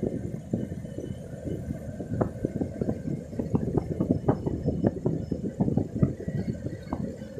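Wind buffeting the microphone of a camera moving along the road: a dense, irregular rumble of low thumps with nothing much above it.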